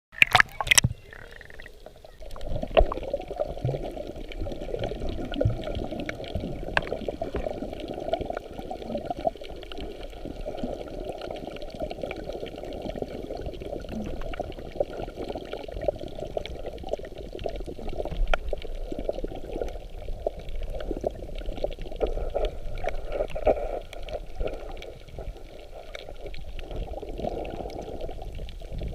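Muffled water sloshing and bubbling close to the microphone, with scattered small clicks and a few knocks in the first second.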